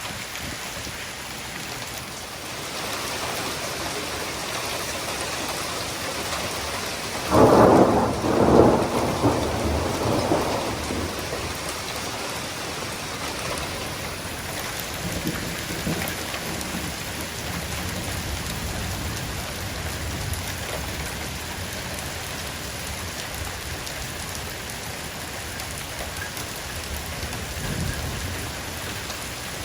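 Steady rain falling, with a thunder rumble in two surges about a quarter of the way in.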